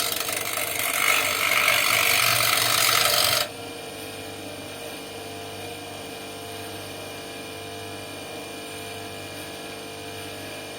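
Power grinder working on a metal part, a loud rasping noise that stops abruptly about three and a half seconds in, leaving a quieter steady hum.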